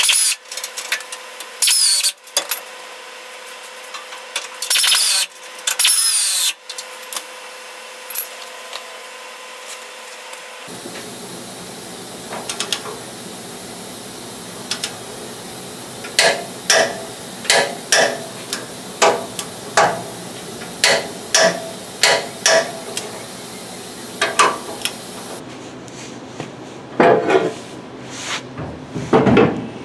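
Hand tools on the steel front-suspension parts of a 1963 Chevy C10: a few loud squeaky metal scrapes as a lower control arm is worked into its frame mount, then a long-handled ratchet wrench tightening the control-arm bolts in steady strokes, about one every 0.7 seconds.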